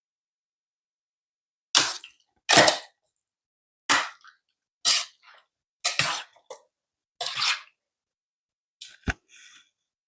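Raw chicken wings being mixed in a wet soy-and-lemon marinade in a bowl: about seven short wet squelching bursts, ending with a sharp knock.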